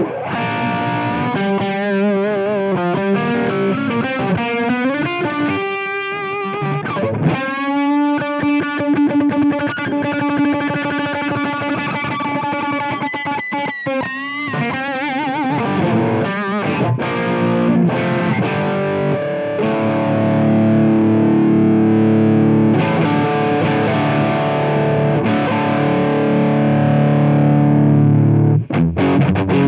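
Electric guitar played through an iSet Hot Distortion pedal, a thick, saturated gain sound. It plays single-note lead lines with bends and vibrato, a long sustained note with vibrato, then denser chords in the second half.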